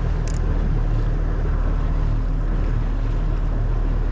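Boat engine running steadily under wind and water noise.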